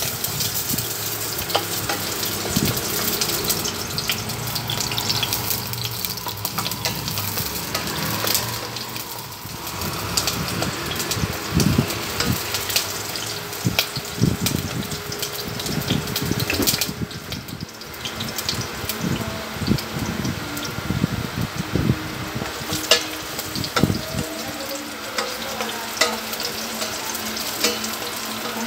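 Chopped red onion sizzling and crackling in hot oil in a stainless steel pot, while a wooden spatula stirs it against the pot.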